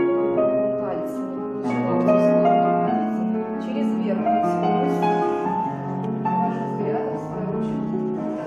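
Piano music: a slow melody over held low chords, playing as accompaniment to a ballet exercise.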